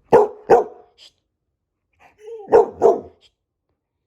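Samoyed barking: two short barks in quick succession, then after a pause a brief rising whine and two more barks.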